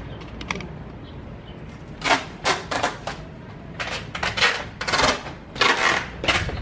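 Packing tape being pulled off its roll in a run of loud rasping strips, starting about two seconds in, as it is wound around a person to bind her.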